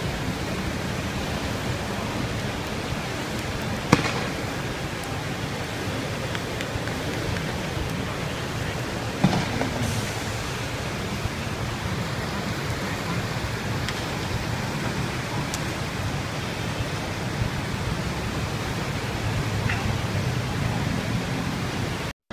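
Two sharp bangs about five seconds apart over a steady hiss-like outdoor din.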